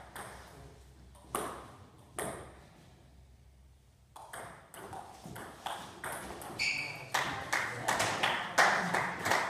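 Table tennis ball, bats and table: two separate knocks of the ball, a short pause, then a doubles rally of sharp hits and table bounces, two or three a second, getting louder toward the end. A brief high squeak comes midway through the rally.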